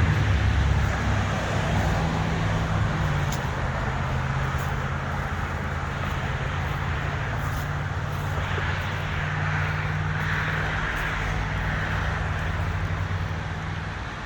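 A car engine and road noise heard from inside the cabin: a steady low hum that eases off gradually toward the end.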